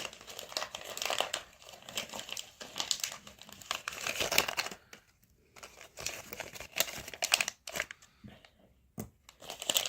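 Paper and plastic wrappings crinkling and rustling in the hands, with some light tearing, as the wrappings of a blind-box toy capsule are picked through. The handling comes in irregular spurts, with short pauses about five seconds in and again near the end.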